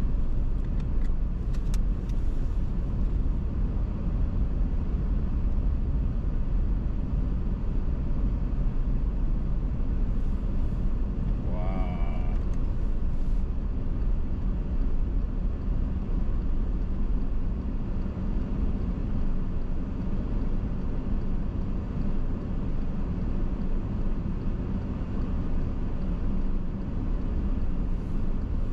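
Steady low rumble of a car driving, heard from inside the cabin, with a brief warbling tone about halfway through.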